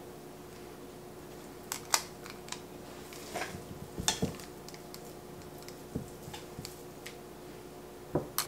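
Sparse light clicks and taps of a metal cookie scoop and meatballs against a baking sheet as the meatballs are portioned out, with a faint steady hum underneath.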